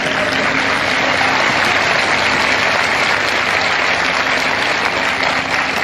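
A large audience applauding, a dense, steady clapping that holds at one level throughout.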